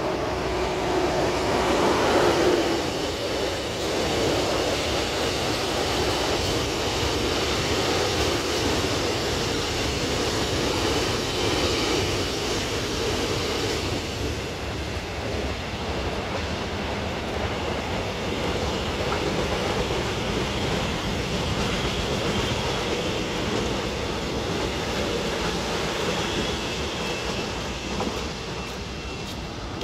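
A cement freight train hauled by an electric locomotive passing close by, loudest about two seconds in as the locomotive goes under, then a long steady rumble and clatter of the wagons rolling over the rails.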